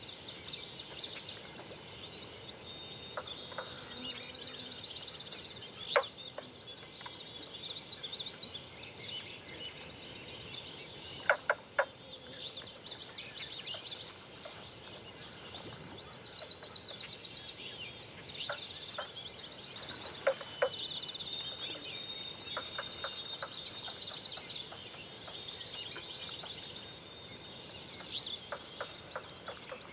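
Songbirds singing at dawn: several birds overlapping in high, rapid trills and repeated chirping phrases. A few short, sharp clicks stand out above them, some in quick pairs.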